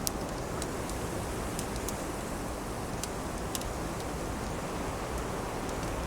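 Steady wind noise with irregular, scattered sharp crackles from burning wood.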